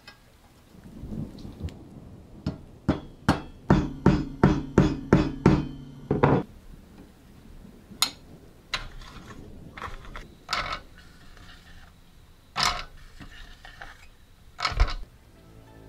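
Powder-coated metal parts of a manual playing card shuffler knocking and clicking as they are fitted together: a quick run of about a dozen knocks, roughly three a second, then scattered single clicks.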